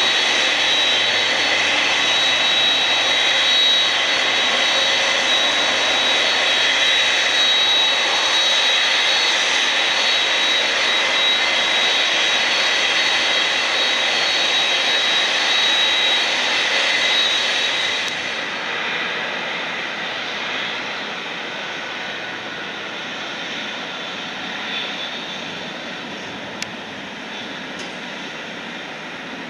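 Boeing 767's General Electric CF6-80C2 jet engines idling close by, a loud steady high metallic whine. About two-thirds of the way through, the whine drops away and a quieter, more distant jet engine sound takes over.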